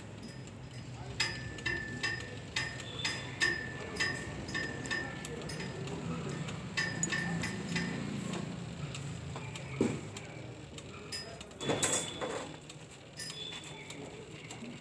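Small metal objects clinking again and again, each click leaving a brief ring at the same pitch, about two or three a second for the first few seconds and more scattered later, over a low background murmur. A louder, brief rough sound comes about twelve seconds in.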